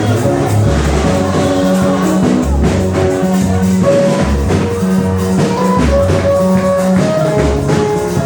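Live gospel music with a pulsing bass line, sustained keyboard-like notes, tambourine shaken to the beat, and some singing.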